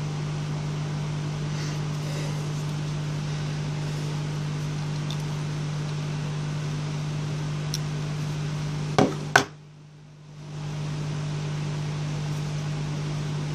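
Steady whirring hum and hiss of an electric heater fan, the soldering heater warming the board from below. About nine seconds in there are two sharp clicks, then the hum drops away for about a second and swells back.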